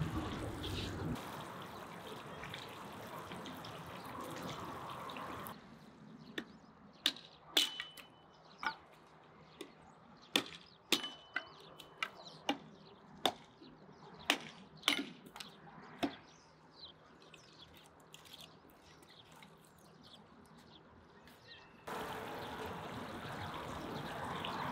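Fish cutlets sizzling in hot oil in a frying pan, then an axe splitting firewood: a dozen or so sudden chops about one a second, before the sizzling frying comes back near the end.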